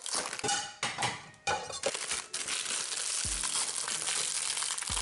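Hot Pockets cardboard box torn open, then the sandwich's plastic wrapper crinkling steadily as it is handled, with a few soft knocks in the second half.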